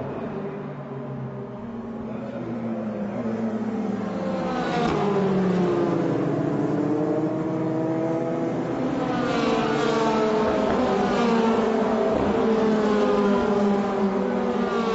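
Formula Renault 2.0 single-seaters' four-cylinder engines running at reduced pace behind the safety car. Several engine notes rise and fall as the cars shift gears and go past, with the sound getting louder a few seconds in.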